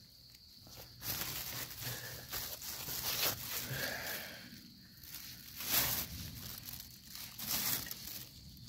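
Dry leaf litter rustling and crackling in uneven bursts as a hand digs through it, picking small white mushrooms from the forest floor.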